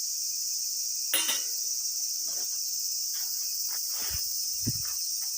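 Wood fire crackling in a compact fire pit grill, with a sharp pop about a second in, scattered snaps, and a couple of dull knocks near the end, over a steady background of chirping insects.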